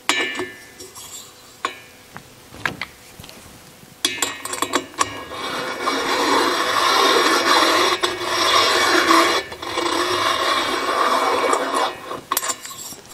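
Hand-turned valve seat cutter rasping as it shaves the 45-degree valve seat in an air-cooled Porsche 911 cylinder head. After a few light clicks, the rasping starts about four seconds in, runs for about eight seconds and stops, followed by a couple of knocks.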